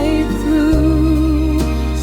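Slow background music: a held, wavering melody line over a steady low bass.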